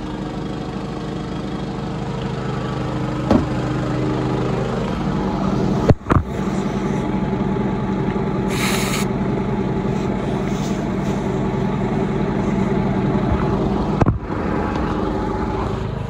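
An engine idling steadily under a short burst of compressed-air hiss about halfway through, as an air hose's quick-connect coupler is snapped together. Sharp clicks come about six seconds in and again near the end.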